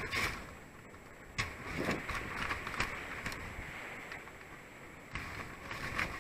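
Wire-mesh crab trap clicking and rattling against the zip-tied camera housing as it swings on its line, in irregular sharp taps over a steady hiss.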